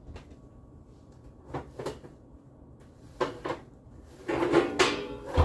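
A kitchen cabinet being opened, with a few separate knocks and clicks, then a metal cookie sheet clattering as it is pulled out. It ends with a loud knock as the sheet is set down.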